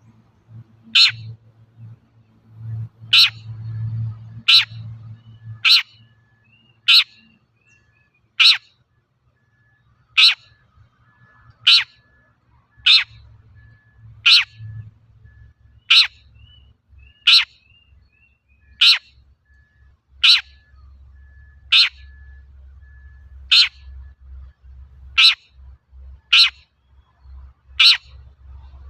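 Long-tailed shrike giving short, sharp calls, one every second or so, about nineteen in a row, over a faint low hum.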